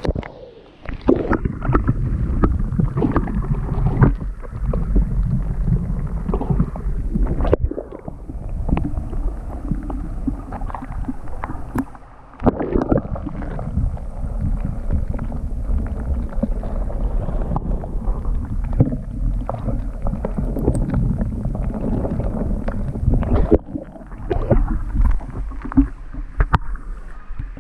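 Water sloshing and gurgling around a camera held at and under the surface of a shallow stream: a muffled, dull rush with frequent knocks and clicks as the camera moves through the water. It briefly drops away a few times as the camera comes up out of the water.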